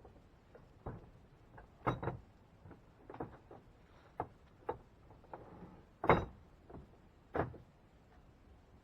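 Irregular knocks and clacks of a jackhammer and its bit being handled and fitted, about a dozen in all, the loudest a little after six seconds in.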